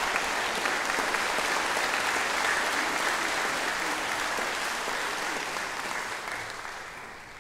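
Concert hall audience applauding, the clapping fading away over the last couple of seconds.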